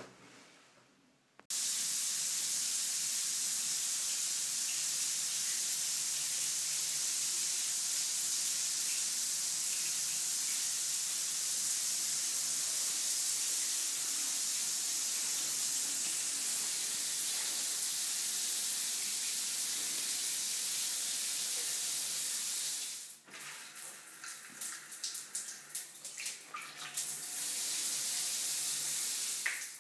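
Newly installed overhead rain shower head running, water pouring steadily onto a tiled shower floor once it is turned on about a second and a half in. About 23 seconds in the steady flow breaks off into irregular splashing and dripping, then a steady stream runs again for a few seconds near the end.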